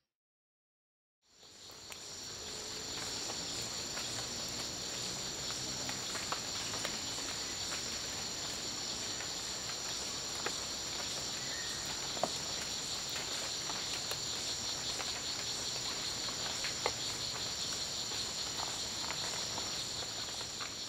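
Steady, shrill forest insect chorus, fading in after about a second of silence, with a few faint clicks, and fading out near the end.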